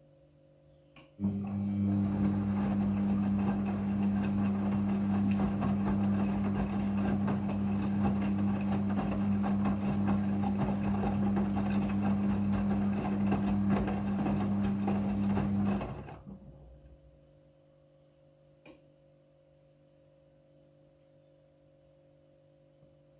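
Front-loading washing machine on its rinse cycle: a click, then the motor turns the drum with a steady hum and a rough swishing of the wet laundry for about fifteen seconds, before winding down and stopping. In the pause that follows a single short click is heard.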